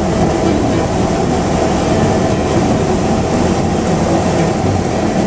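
Steady drone of a light aircraft's piston engine and propeller, heard inside the cabin in flight.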